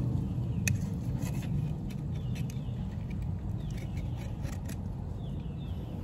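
A steady low rumble, with light clicks and short scrapes scattered through it, as a knife works on a mahi being cut for skinning and filleting.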